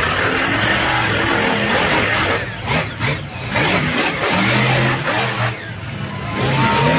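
Monster truck engines revving hard, the loud engine noise surging and dipping twice.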